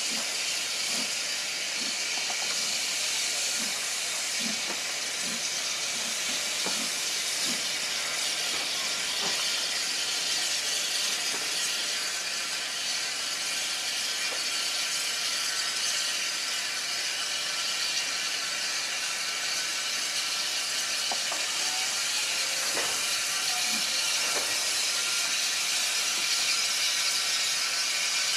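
Steady hiss of steam from a saddle-tank steam locomotive as its train of carriages moves slowly past, with occasional light clanks from the coaches, mostly in the first third.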